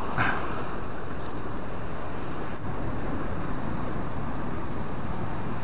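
Steady rush of ocean surf washing around sea rocks, mixed with wind on the microphone.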